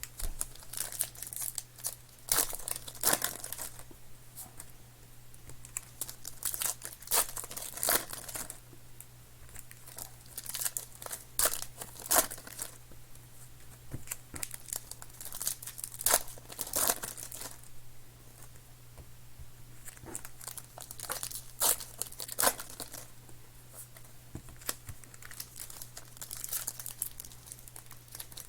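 Plastic wrapping on football trading-card boxes and packs being torn and crinkled in irregular bursts, over a low steady hum.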